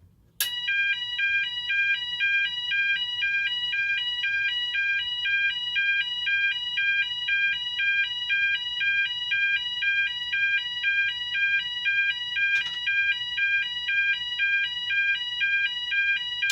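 Cooper MIN-T electronic fire alarm sounder sounding its high-low tone, switching rapidly back and forth between two pitches. It comes on with a click about half a second in.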